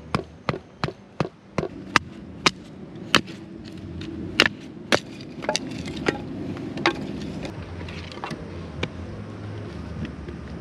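Wooden baton knocking on the spine of a knife to split firewood. Sharp wooden knocks come about two a second, then thin out and grow fainter in the last few seconds.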